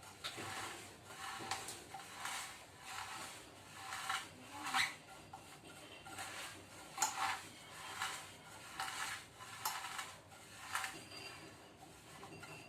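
Granulated sugar and grated lemon zest being rubbed and mixed together, a series of gritty scraping strokes about once a second.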